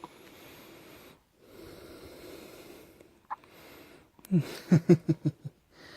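A baby with the hiccups breathing noisily, with a single sharp catch a little past three seconds in. Near the end comes a quick run of about six short, squeaky vocal sounds, louder than the breathing.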